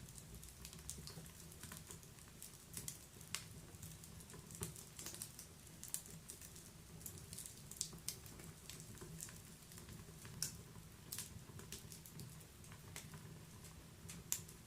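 Wood fire crackling in a fireplace: irregular small snaps and pops, a few a second with some sharper ones, over a low, soft rumble of the burning.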